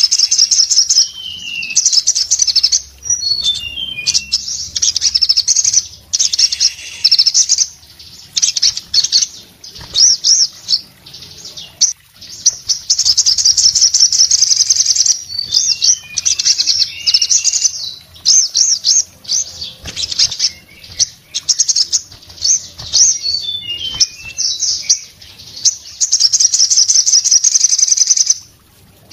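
Caged male sogon sunbird singing loudly in rapid, high-pitched trilling phrases, repeated with brief pauses and broken by a few short downward-slurred notes, with wings fluttering.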